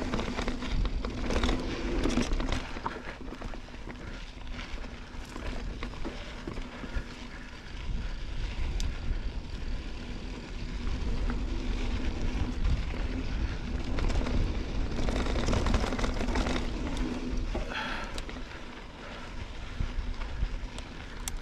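A Santa Cruz Bronson mountain bike rolling down a dirt trail. Wind rumbles on the camera microphone, rising and falling, with tyre crunch over dirt and rock and frequent sharp clatters from the bike.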